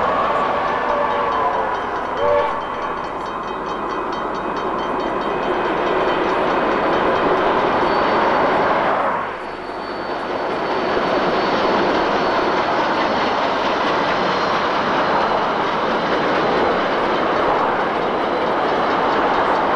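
NZR J class steam locomotive J1211 working its excursion train past, a steady heavy rumble of engine and carriages on the rails. A short whistle note sounds about two seconds in, and the sound drops briefly just after nine seconds before the rumble carries on.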